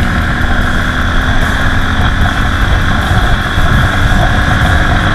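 Haojin 200cc single-cylinder dual-sport motorcycle engine running at a steady road speed while carrying a passenger, with heavy wind rumble on the microphone.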